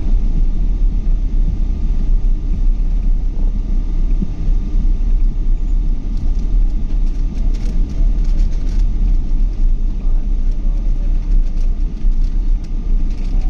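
Steady low rumble of a Boeing 777's engines and airflow heard inside the passenger cabin, with a faint steady whine above it and a few light clicks about halfway through.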